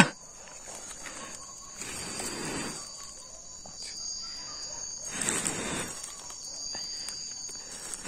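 Night insects in the forest chirring in a steady high-pitched chorus. Three soft breathy rushes of noise come a few seconds apart.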